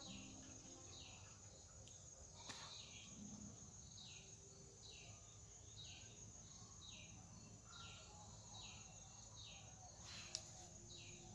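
Faint outdoor ambience: a bird repeats a short falling chirp about every half second over a steady high insect drone.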